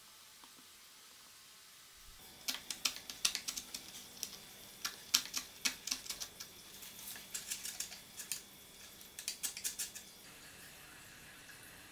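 Small hand plane trimming thin wooden kumiko pieces: quick, sharp shaving strokes in irregular runs of several per second, starting about two seconds in and stopping near the end.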